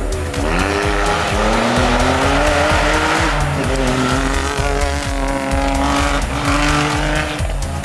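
Rally-raid competition vehicle's engine under hard acceleration, its pitch climbing over the first couple of seconds and then holding and shifting as it drives on at speed.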